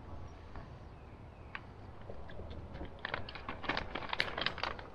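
Plastic bag of shredded cheese crinkling and rustling as cheese is shaken out of it onto a salad, with a run of small crisp crackles in the second half.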